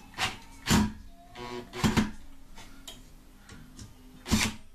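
A few sharp clicks and knocks from a cordless drill driving fan-blade screws into a ceiling fan, its clutch set low to limit the torque.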